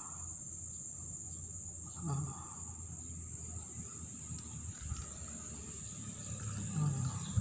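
Steady high-pitched chirring of crickets or similar insects, with a voice making two brief sounds, about two seconds in and near the end.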